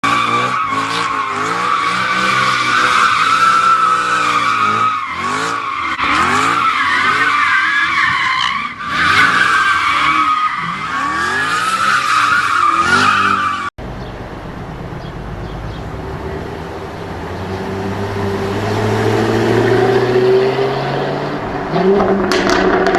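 Jaguar car's tyres squealing through a long drift or burnout while the engine revs up and down again and again. After a sudden cut about 14 s in, the car's engine pulls hard with rising pitch, with a few sharp pops near the end.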